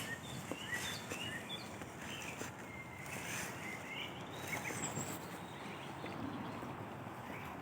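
Songbirds chirping and singing, with the soft footsteps of someone walking along a forest path.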